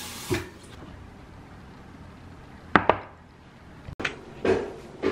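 A few short, sharp clicks, two of them close together about three seconds in, then a wooden spoon knocking and scraping in a small ceramic bowl near the end.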